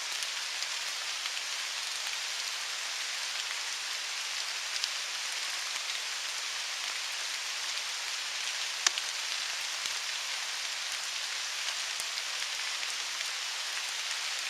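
Steady rain falling, an even hiss, with a single sharp click about nine seconds in.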